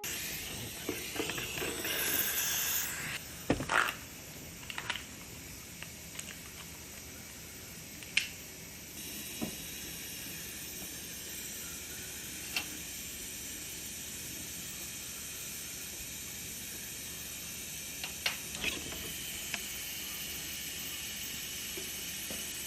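A steady hiss with short sharp clicks scattered through it, several in the first few seconds, one about eight seconds in and a small cluster near the end.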